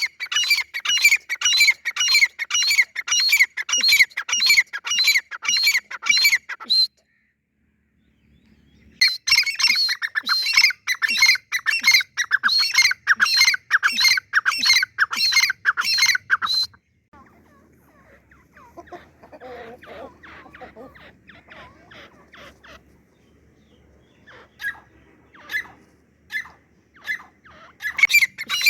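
Gray francolin calling: long runs of loud, shrill repeated notes, about three a second. The calling breaks off for a second or two around a quarter of the way in, turns fainter and more scattered from a little past the middle, and comes back loud near the end.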